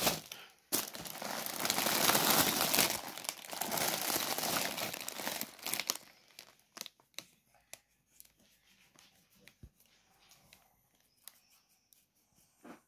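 Plastic food packaging crinkling as it is handled: bread bags and a crisp packet. The crinkling is loud for about five seconds, then gives way to light scattered rustles and small taps.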